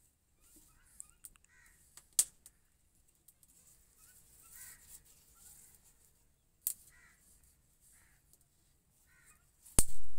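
Short bird calls repeated about six times, every second or two, over a few sharp clicks, the loudest click near the end.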